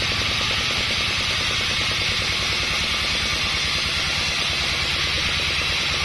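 Band sawmill running, its blade cutting through a sonokeling (Indian rosewood) log: a steady hiss over a low motor hum.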